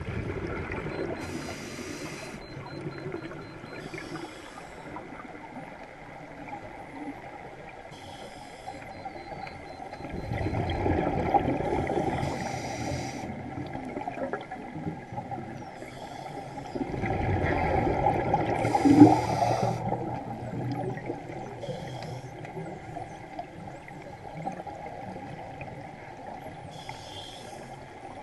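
Scuba regulator breathing underwater: short hissing inhalations and rushing exhaled bubbles, repeating every few seconds. There are louder bubble rushes about ten seconds in and again about seventeen seconds in.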